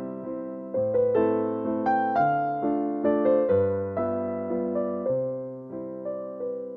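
Background piano music: chords and a melody of struck notes that fade away, at about two notes a second.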